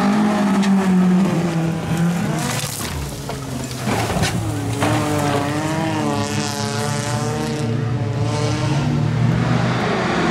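Stock car engines revving hard on a dirt track, with tyre noise and skidding. There are short clatters around two and a half seconds in, and from about five seconds an engine revs up and down repeatedly.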